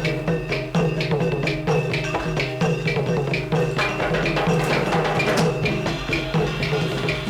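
Music with a steady percussive beat of woody knocks over sustained pitched tones.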